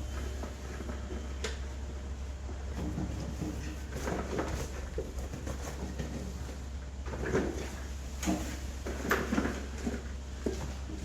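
Knocking and clattering of wild stone pears being piled into a large cauldron, heard over a steady low hum.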